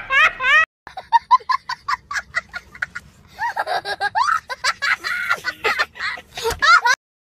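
A cartoon cat's laugh for a moment, cut off sharply, then a young boy laughing hard: a quick run of high-pitched giggles that breaks into longer, louder laughs.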